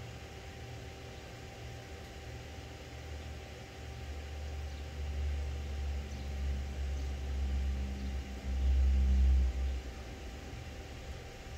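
A low rumble that builds from about four seconds in, is loudest for about a second near the end, then drops away, over a faint steady hum.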